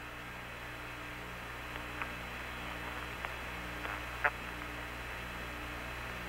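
Open air-to-ground radio channel between speech: steady hiss and low hum, with a faint low tone that keeps switching on and off and a few brief clicks, the loudest about four seconds in.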